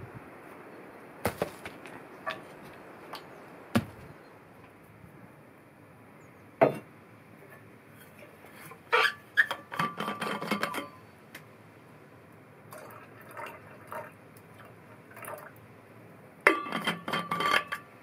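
Stones being handled and dropped on a stone cellar floor: scattered single knocks and clinks, then two longer bouts of clattering, one about nine seconds in and one near the end.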